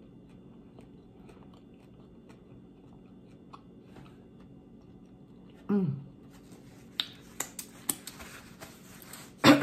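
Close-miked chewing with faint mouth clicks. About halfway comes a short hum of enjoyment that falls in pitch. Then a few sharp lip smacks and finger-licking sounds, louder near the end.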